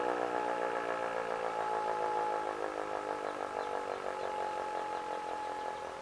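ASC T-128 outdoor warning siren winding down, its pitch sliding slowly lower as it fades. Distant sirens sound underneath, one holding a steady tone.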